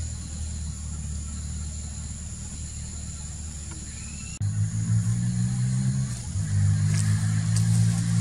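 A low engine hum, like a motor vehicle idling nearby, which becomes louder and more pitched about four seconds in. A faint steady high insect-like tone runs underneath.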